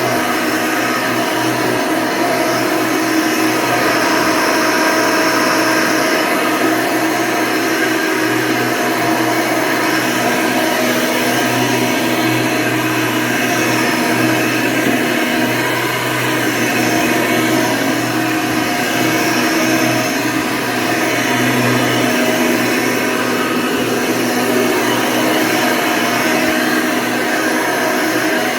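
1992 Hoover Legacy II upright vacuum running steadily, its motor fitted with a 20-bladed fan: a constant rush of air with a steady motor whine.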